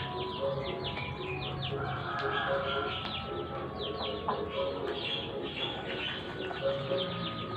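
Birds chirping: many quick, high chirps overlapping throughout, with short low cooing notes repeating underneath.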